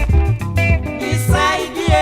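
Recorded band music from an East African dance band: an instrumental passage with a steady beat, a prominent bass and sustained pitched melody lines.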